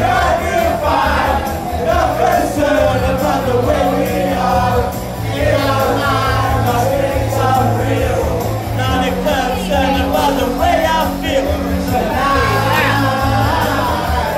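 A man singing a rock song karaoke-style into a microphone over a loud backing track played through the PA.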